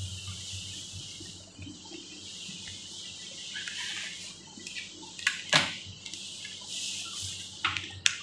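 Fabric rustling as a cloth bath blanket and towel are spread and tucked over a bed, with a few sharper brushes or clicks a little past halfway and near the end.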